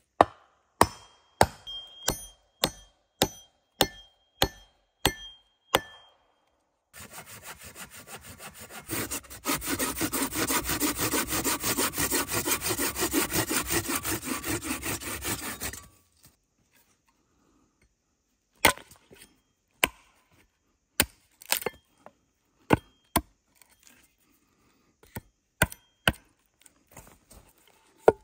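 Chopping blows on wood, about two a second with a slight metallic ring. Then about nine seconds of rapid back-and-forth hand sawing through wood, followed by more scattered chopping knocks.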